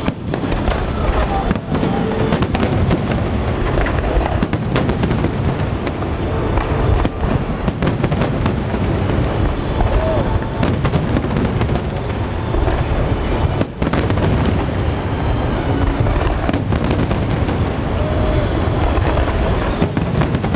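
Aerial fireworks shells bursting in a dense finale barrage: a rapid, near-continuous run of loud booms and crackles with hardly a break.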